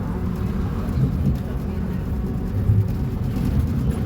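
Scania K270IB bus's rear-mounted diesel engine running with a steady low rumble.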